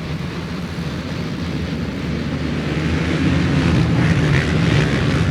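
A row of racing ATV engines revving together at a cross-country start line, the combined drone growing louder over the second half as the row launches off the line.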